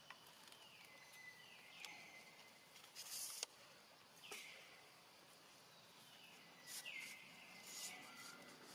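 Faint outdoor ambience with a high animal call repeating several times at uneven intervals, each falling in pitch and then levelling into a short held note.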